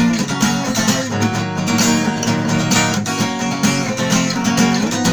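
Acoustic guitar strummed in a fast, rhythmic gallop strum, chords ringing with no singing.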